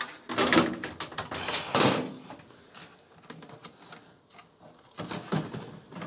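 Plastic control panel of a Westinghouse clothes dryer being handled and worked back into place over its wiring: plastic scraping and knocking against the cabinet, busiest in the first two seconds and again about five seconds in.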